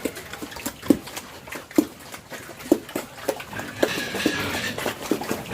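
Pigs eating a wet mixed feed greedily, with irregular smacking chomps and short grunts.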